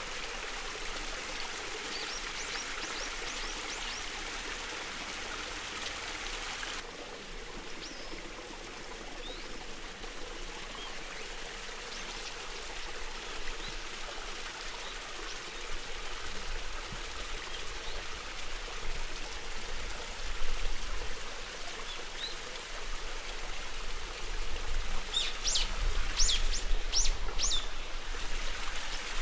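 Steady rush of flowing water with birds chirping now and then. The water sound becomes softer about seven seconds in, and near the end a bird gives a quick run of several loud, sharp chirps.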